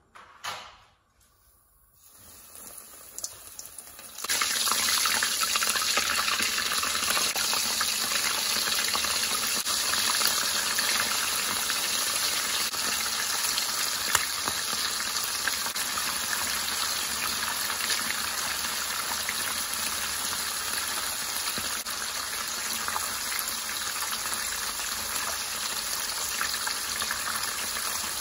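Breaded ham and cheese rolls deep-frying in hot oil in a frying pan: the sizzle builds about two seconds in, then becomes a loud, steady crackling sizzle from about four seconds on.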